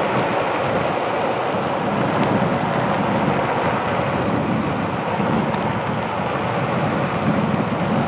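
Onewheel Pint in motion on pavement: steady rushing of wind over the action-camera microphone mixed with the board's tyre rolling on the road, with a couple of faint ticks.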